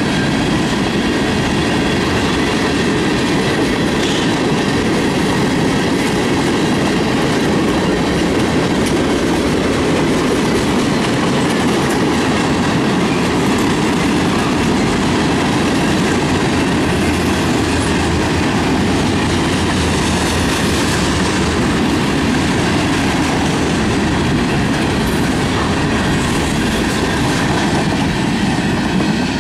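Tank cars of a Canadian National manifest freight train rolling past close by: a steady, loud rumble of steel wheels on the rails.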